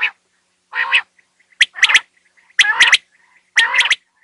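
Quail calling: short bursts of three sharp, high notes in quick succession, repeated about once a second, four bursts in all.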